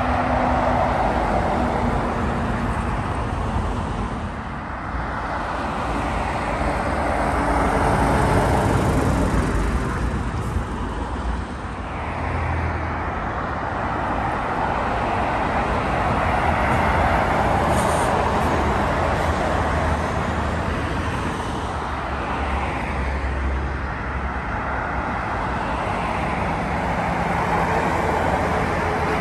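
Road traffic passing at speed: lorries and cars go by one after another, their tyre noise and diesel engines swelling and fading as each vehicle passes.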